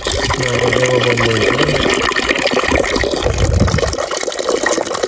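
Water running steadily in a continuous rushing flow, with a low held hum at a steady pitch for about a second near the start.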